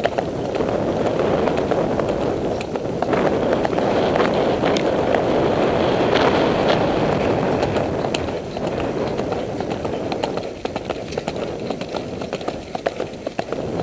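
Horse galloping on a dirt trail, heard from the saddle: a run of hoofbeats under a steady rush of wind on the microphone. The wind eases about ten seconds in, and the hoofbeats come through more clearly as an even rhythm.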